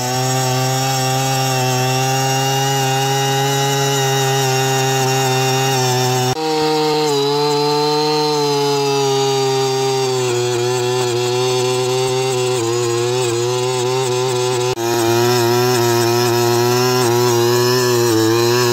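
Earthquake one-man earth auger's 43cc two-stroke engine running at high throttle while the auger bores into soil. Its pitch sags a little now and then as the bit takes the load. The sound breaks off abruptly twice, at about six seconds and near fifteen seconds, where the shots change between holes.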